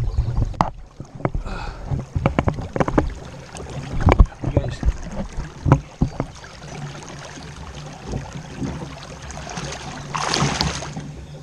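Knocks and thumps against a kayak hull and water sloshing as a large flathead catfish is held alongside the boat for release. About ten seconds in comes a short splash.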